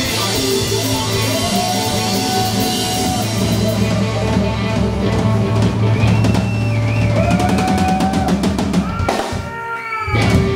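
Live blues band with electric guitar, electric bass and drum kit playing together. The music drops away about nine seconds in, with a last loud hit just before the end.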